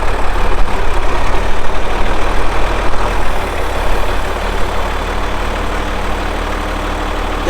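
Farm tractor engine running steadily at close range while it loads a hay bale onto a pickup's bed.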